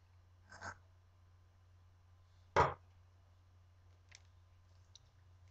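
Quiet room tone with a steady low hum, broken by a brief soft rustle under a second in and one sharp knock about two and a half seconds in, as a metal can of chicken broth is set down on the counter. A faint click follows near four seconds.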